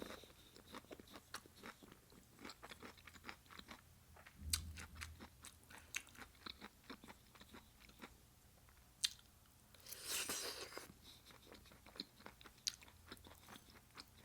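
Close-miked chewing and crunching of vegetables dipped in cheese fondue, a quick irregular run of wet crunchy clicks. About ten seconds in there is a longer, louder rush of noise.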